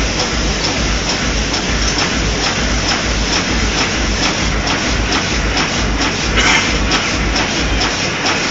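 Loud, steady background din with a regular low pulse, two or three beats a second, that stops near the end.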